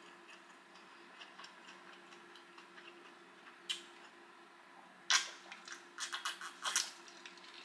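Someone drinking from a glass: faint small clicks, then a run of short swallowing sounds from about five seconds in, over a faint steady hum.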